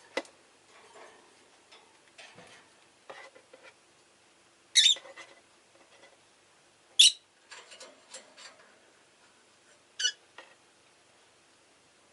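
Rosy-faced lovebird giving three loud, sharp, high chirps, about five, seven and ten seconds in, with softer short chatter and small clicks between them.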